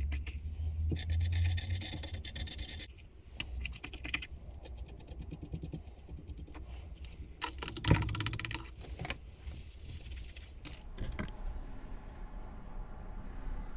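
Hand scraping and rubbing strokes on the book trough's surface, uneven and intermittent, with one louder knock about eight seconds in. About eleven seconds in the scraping stops and gives way to a steady low background hum.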